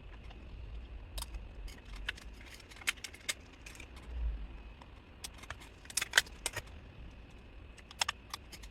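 Scattered small clicks and ticks of hands working in an open laptop's memory slots, pulling out a DDR5 SO-DIMM stick and fitting new ones.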